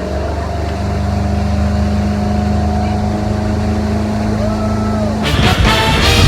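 Motorboat engine running at a steady speed, a constant low drone. About five seconds in it cuts off abruptly and music takes over.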